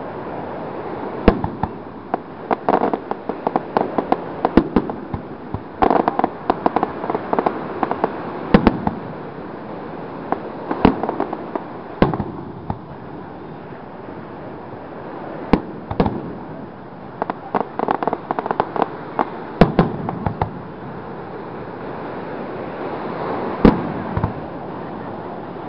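Aerial fireworks shells bursting one after another: single sharp bangs mixed with dense runs of rapid pops and bangs.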